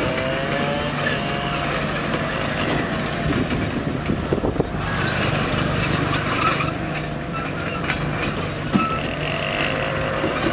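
A bulldozer's heavy diesel engine working, with a steady low drone and a whine that slides up and down. Scattered clanks run through it, with a cluster of knocks about four seconds in.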